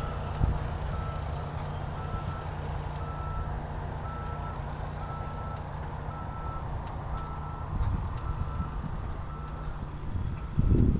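A heavy construction machine's reversing alarm beeps about once a second over the steady low running of its engine.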